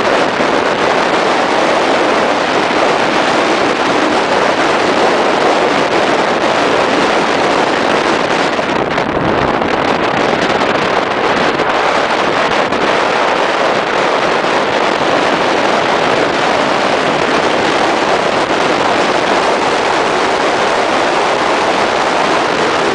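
Steady rushing wind and road noise from riding a motorcycle at road speed, with wind on the microphone covering the engine.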